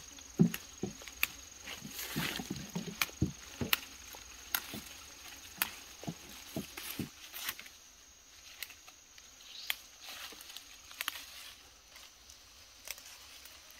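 Fern fronds being snapped off by hand and leafy undergrowth rustling, with many sharp clicks and soft thumps. They thin out after about seven seconds into sparse rustles in the foliage.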